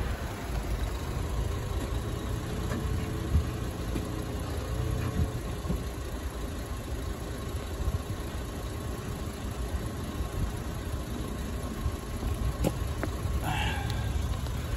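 Volkswagen Jetta MK5 2.5 inline-five running steadily through a modified exhaust that has had its intermediate muffler removed, giving a low, even exhaust note with no marked revving.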